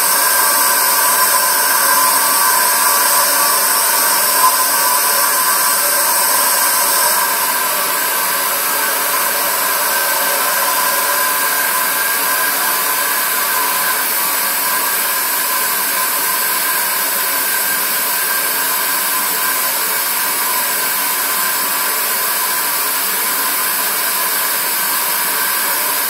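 Steady loud hiss of compressed air rushing into a hyperbaric recompression chamber as it is pressurised for the descent. About seven seconds in, the highest part of the hiss drops away and it gets slightly quieter.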